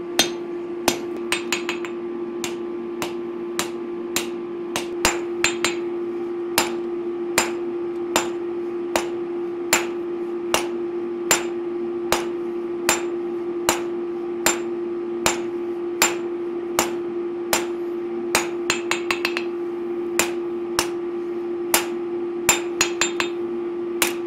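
Hand hammer blows on a red-hot knife blank laid over the edge of the anvil, setting the ricasso and plunge line of a bowie blade. The strikes are steady, a little more than one a second, and some are followed by quick, lighter taps. A steady hum runs underneath.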